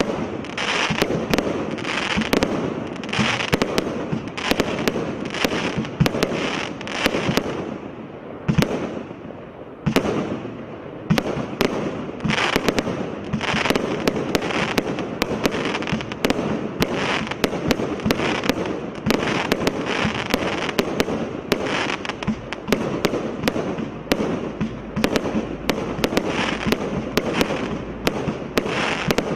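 Absolute Fireworks 'Twisted Twins' firework going off in a rapid, continuous run of sharp bangs and crackle, several reports a second. There is a short lull about eight seconds in, and then the barrage carries on.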